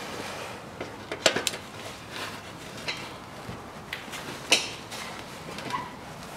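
A handful of sharp, separate metallic clinks and clanks from a socket ratchet and spanner working an exhaust pipe clamp bolt loose.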